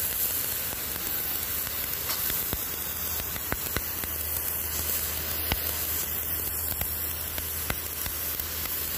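Pressure water jet from a brass hose nozzle blasting algae and grime off a wet concrete floor: a steady hiss of spray with small ticks of water spattering on the surface.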